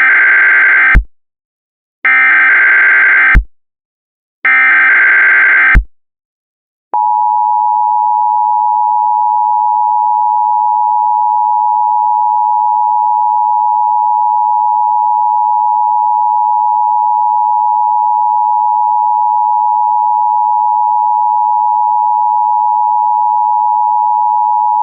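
Emergency Alert System tones: three bursts of SAME header data, each about a second and a half of buzzing digital noise ending in a click, the first already under way. About a second after the third, the steady two-tone attention signal begins and holds unbroken.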